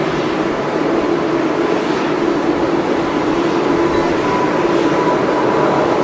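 Boeing 777 jet engines at takeoff thrust as the airliner accelerates down the runway: a steady, loud jet rumble with a humming tone, slowly growing louder toward rotation.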